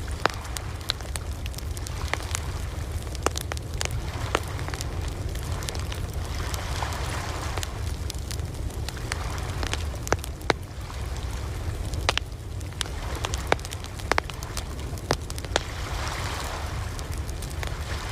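Campfire crackling with frequent sharp pops over a steady low rumble, and ocean waves washing in twice as slow swells.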